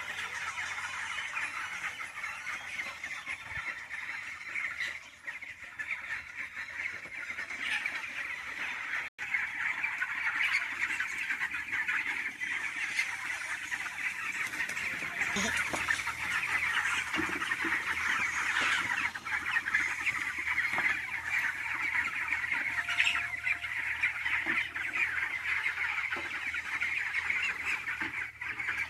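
A large flock of chickens in a poultry shed chirping and clucking all at once, a dense continuous chatter. About halfway through a low steady machine hum joins in underneath.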